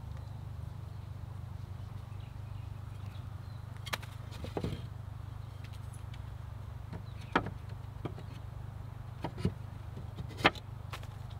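Wooden perch rods knocking and clicking against the frame of a wooden chicken coop as they are fitted in by hand: several short, sharp knocks, the loudest near the end, over a steady low hum.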